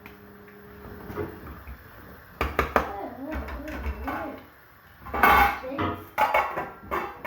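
Cooking pot and utensils clattering, with a few sharp metal knocks about two and a half seconds in and a louder clatter near the five-second mark, over voices.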